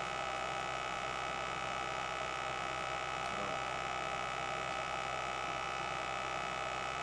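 Steady electrical hum with a constant high-pitched whine.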